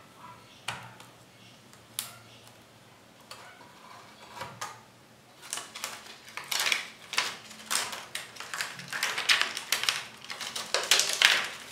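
Small plastic clicks and rustling as a laptop's keyboard and touchpad ribbon-cable connectors are unlatched and the loose top case is handled. There are two sharp clicks in the first couple of seconds, then a run of crackling and rustling from the middle on as the thin plastic sheet and case parts are moved.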